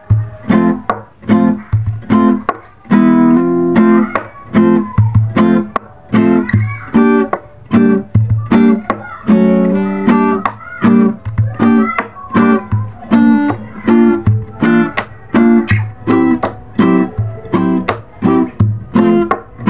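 Acoustic guitar strummed in chords with a steady rhythm, each strum ringing out briefly before the next.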